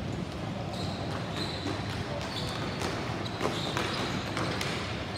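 Ball hockey in play: a few scattered sharp knocks of sticks and ball on the playing surface over a steady din of the rink, with faint players' voices.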